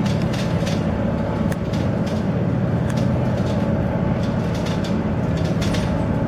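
Engines of a 40 m Incat Crowther high-speed catamaran ferry running at speed with a steady low drone, under a constant rush of noise. Now and then comes a brief higher crackle or rattle.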